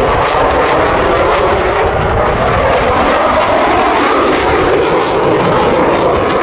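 An RAF Eurofighter Typhoon's twin EJ200 jet engines running at high power during a display manoeuvre: a loud, steady jet noise full of crackle.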